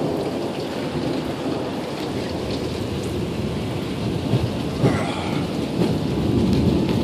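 Heavy rain falling in a thunderstorm, a steady hiss likened to AM radio static. Thunder starts to rumble and build near the end.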